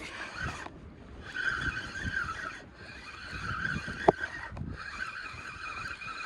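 Fishing reel being wound in, a whirring whine in four spells with short pauses between turns. There is a sharp click about four seconds in.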